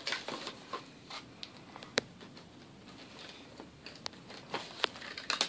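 Small plastic toy bags being handled and pulled open: scattered soft crinkles and small clicks, with one sharp click about two seconds in and a few quick clicks near the end.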